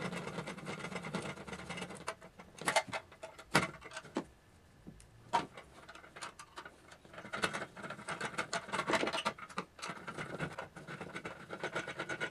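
A screwdriver driving a screw into a lock nut held with pliers, through a steel bracket on a plastic desoldering-gun housing: fine rapid scraping and ticking as the screw turns, with a few sharper clicks and knocks of tools against the plastic in between.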